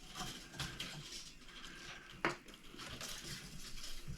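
Quiet handling noise of hands working on an electric guitar's strings, with one sharp metallic click about two seconds in.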